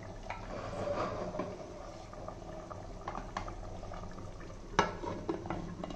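Biryani rice and water boiling in an aluminium pressure cooker, a steady bubbling with small pops, and a single sharp metal knock about five seconds in as the lid goes on.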